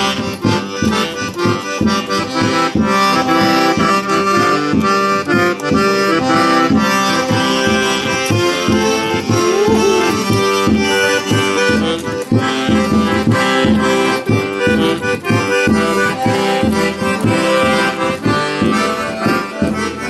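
An old Brazilian sanfona (accordion) playing a tune: held chords and melody over a steady rhythmic bass pulse.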